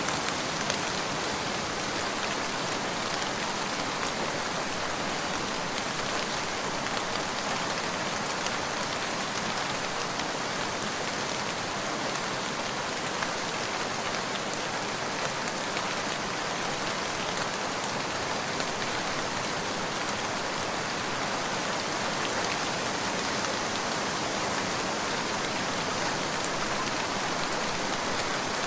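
Steady rain falling and pattering on a surface, an even hiss with scattered faint drop ticks.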